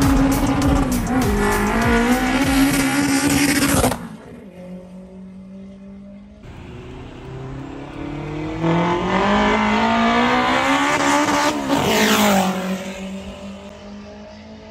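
Turbocharged Honda K24 inline-four in an EG Civic pulling hard, heard from inside a car running alongside. A loud engine note holds for about four seconds and then drops away suddenly. After that a long climb in pitch peaks and falls back as the sound fades near the end.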